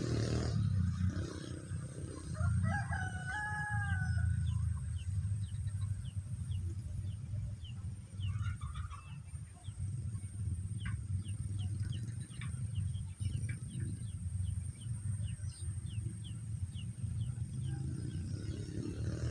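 A rooster crowing once, about three seconds in, over a steady low rumble. Later comes a long run of short, high chirps, about two a second, with a thin steady high tone behind.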